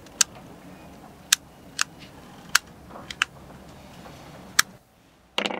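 About six sharp, irregularly spaced clicks from a small plastic circuit breaker being handled as its assembly is finished, its return spring just seated. A short rustle near the end.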